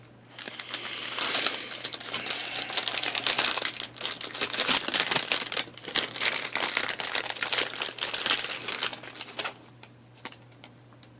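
Plastic bag packaging around laptop hard drives crinkling and rustling continuously as it is handled, stopping about nine and a half seconds in, followed by a few light clicks.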